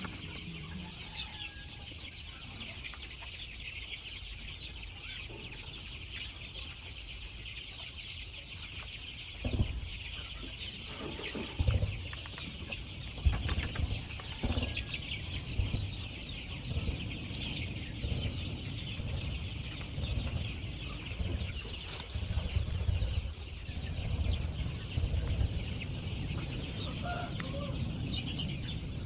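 Chickens clucking over a steady high-pitched background hiss. From about ten seconds in, repeated dull low thumps and rumbles come and go and are the loudest sounds.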